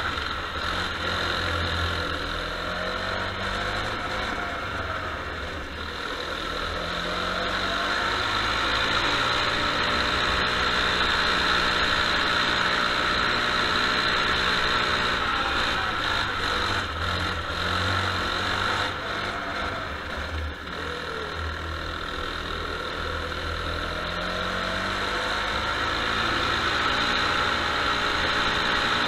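Kart engine, heard from on board, running as the kart laps a wet track, its pitch rising and falling several times as the driver comes off and back on the throttle through the corners. A steady hiss lies over it throughout.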